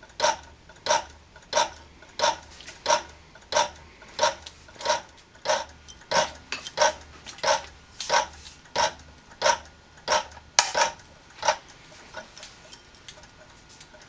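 A Road Wag vintage car safety device working, its red reflector arm swinging back and forth with a sharp clack at each swing, about one and a half clacks a second. The loud clacks stop about eleven and a half seconds in, leaving only faint ticking.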